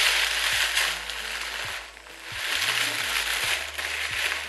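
Shiny printed plastic wrapping of a chocolate Easter egg crinkling as it is pulled open by hand, with a brief lull about two seconds in.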